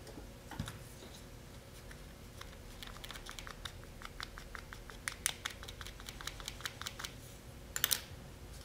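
Rapid light clicks and taps, several a second, from a wooden popsicle stick pressing and tapping super-glued carbon fiber tow down onto a landing gear leg, with a short clatter near the end.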